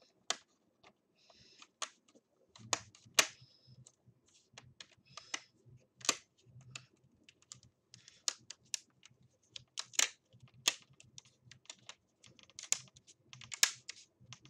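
Irregular sharp plastic clicks and taps as a laptop's screen bezel is pressed down around its edges onto the display and its double-sided tape.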